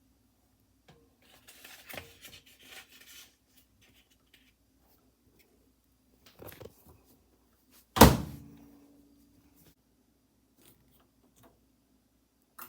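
Rustling and handling noises, then a microwave oven door shuts with a loud thunk about eight seconds in, ringing briefly. A sharp click near the end.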